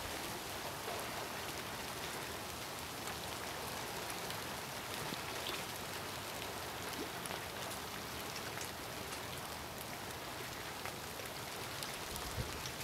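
Steady light rain: an even hiss with faint, scattered drop ticks.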